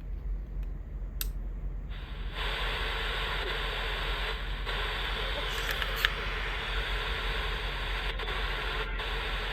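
Steady static hiss from a small Sony pocket radio's speaker, tuned off-station between broadcasts.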